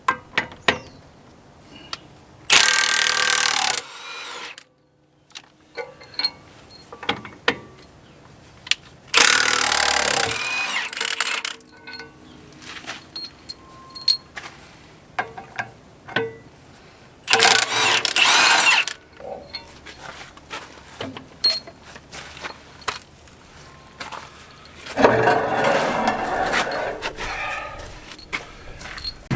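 Impact wrench hammering in four bursts, the first three about one and a half seconds each and the last about four seconds, as it runs wheel lug nuts on a tractor during a tire swap. Metallic clicks and knocks between the bursts.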